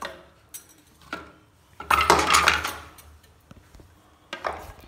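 Metal spoon clinking and scraping against a bowl and blender jar as flour is spooned in: a couple of light clicks, a louder run of clatter about two seconds in, and a shorter one near the end.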